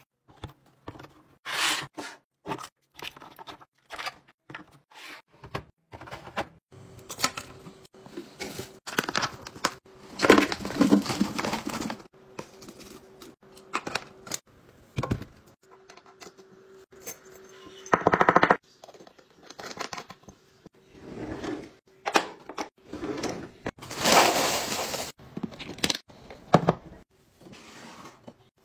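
Kitchen restocking handling sounds: a run of small knocks, clicks and clinks as bottles, boxes and lids are set into clear plastic bins and a glass jar, with two longer rattling stretches about ten seconds in and near the end.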